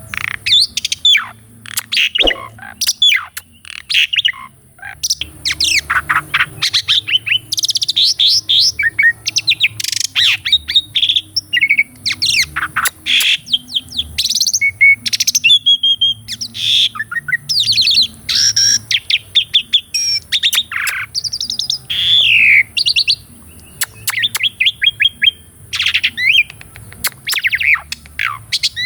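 Asian pied starling (jalak suren) singing a long, varied song of rapid chirps, whistles and rattling runs of repeated notes, with few breaks.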